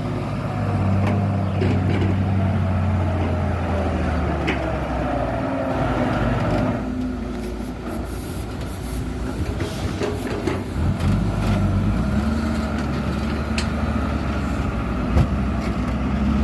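Heavy diesel dump truck engine running, its pitch and load shifting, with a hiss partway through.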